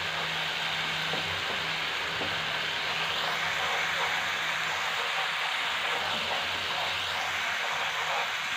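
Onion and green chili paste sizzling steadily in hot oil in a nonstick frying pan as it is stirred with a spatula.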